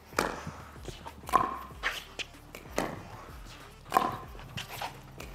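Pickleball rally drill: a plastic ball popping off composite paddles as topspin drops are hit, with its bounces on the hard court in between. It comes as a string of short sharp pops, the loudest about one and a half seconds in.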